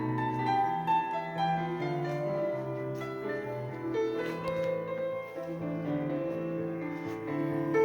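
Classical piano music played from a vinyl record through Quad ESL57 electrostatic loudspeakers, with sustained notes changing every half second or so.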